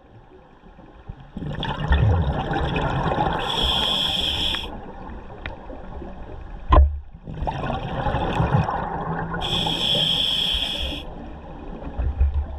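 Scuba diver's breathing heard underwater: two breaths through the regulator, each a long rush of exhaled bubbles with a brief hiss partway through. A single sharp knock falls between the two breaths.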